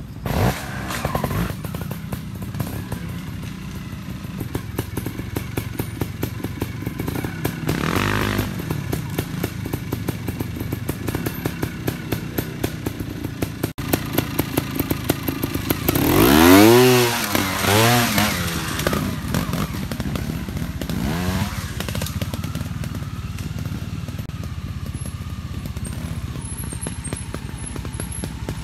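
Trials motorcycle engine running with quick throttle blips. It revs briefly about a third of the way in, then revs hard a little past halfway, the pitch rising and falling twice.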